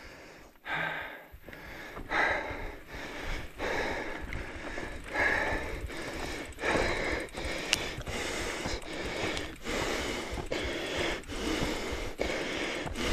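A person breathing hard from exhaustion, taking heavy breaths about every second and a half.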